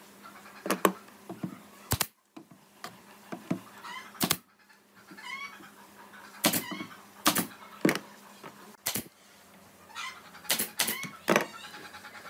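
Pneumatic brad nailer firing nails into pine slats: a series of about ten sharp shots, irregularly spaced over several seconds.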